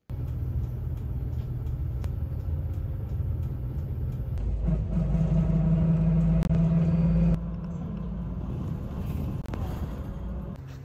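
Bus interior while driving: steady engine rumble and road noise with light rattling clicks. A stronger engine hum swells in the middle and drops away suddenly a little past the halfway point.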